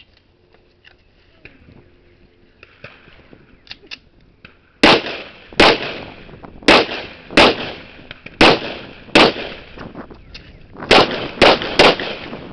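Nine gunshots from a firearm, fired one at a time at an uneven pace over about seven seconds, starting about five seconds in, each with a short echo trailing after it. A few faint clicks come before the first shot.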